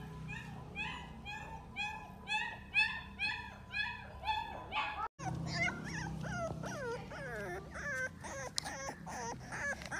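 American bully puppy whimpering: a run of short, even whines about two a second, then after a sudden break about halfway, quicker whines that slide up and down in pitch.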